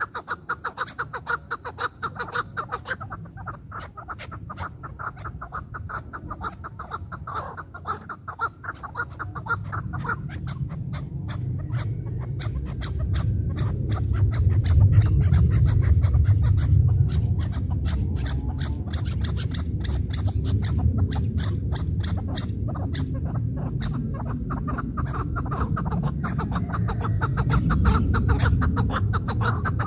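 Chukar partridges calling in rapid runs of short clucking notes. A low rumble swells in about a third of the way through and becomes the loudest sound.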